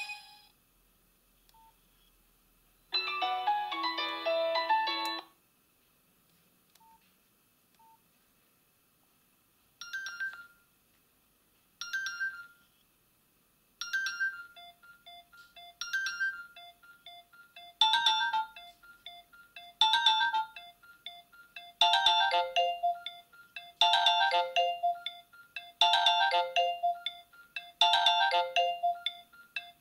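Nokia 6280 mobile phone playing its built-in polyphonic ringtones through its loudspeaker. One tune cuts off right at the start and a short melodic clip plays about three seconds in. After a pause, a new ringtone begins about ten seconds in, with a phrase repeating every two seconds that grows fuller and louder as more parts come in.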